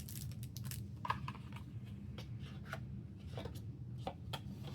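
Album packaging and inserts handled by hand: paper and plastic rustling, with scattered light clicks and taps over a steady low hum.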